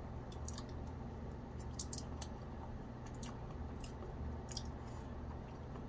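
Scattered soft, squishy clicks from opening and tasting a block of quince paste, over a steady low hum.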